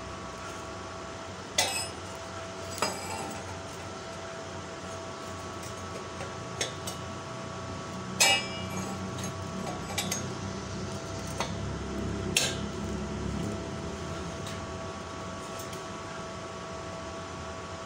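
Thin steel strips of a hexagonal paving-block mould clinking and knocking against each other as they are handled and fitted, about seven sharp metallic clinks with a short ring, the loudest about eight seconds in. A steady hum runs underneath.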